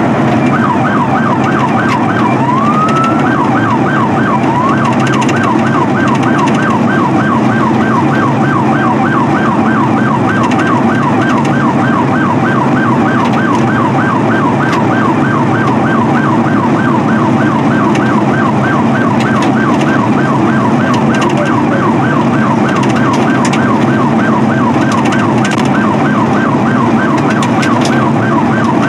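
Police car siren in rapid yelp, sweeping down in pitch about four to five times a second, with a couple of slower rising wails in the first few seconds. Under it runs the steady engine and road noise of a cruiser at speed.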